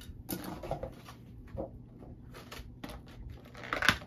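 Packaging being handled: styrofoam and clear plastic wrapping rustling and crinkling in a cardboard box, in irregular short bursts with a louder crinkle near the end.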